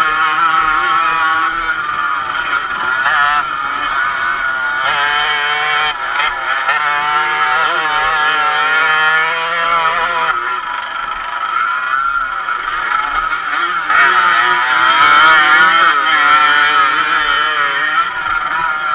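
Dirt bike engine heard on board, revving up and down continuously as the throttle opens and closes, loudest a little past the middle.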